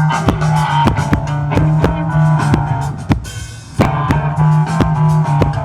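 Live rock band playing through a PA: drum kit, bass and electric guitar at a steady beat, with a short break about three seconds in before the full band comes back in.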